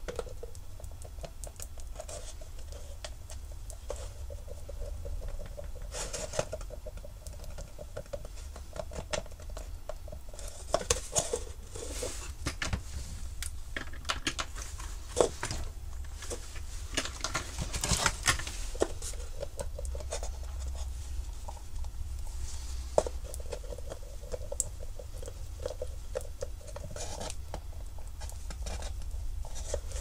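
Light handling of a hard plastic dishwasher control panel: scattered small taps, clicks and scratches, busiest in the middle of the stretch, over a low steady hum.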